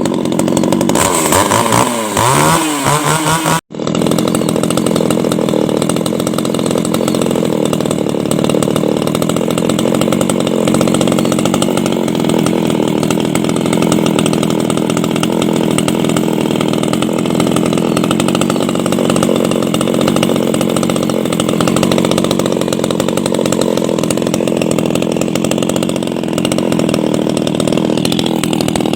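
Maruyama MCZ300 two-stroke chainsaw running at high revs. Its pitch rises and falls for the first few seconds, breaks off for an instant near four seconds, then holds at a steady high rev.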